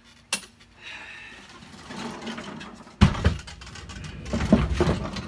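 Walk-behind gas lawn mower pushed with its engine off, its wheels and frame rolling and rattling up to the shed doorway. There is a sharp click about a third of a second in, then a hard knock about three seconds in, followed by irregular clunks as it is bumped over the threshold.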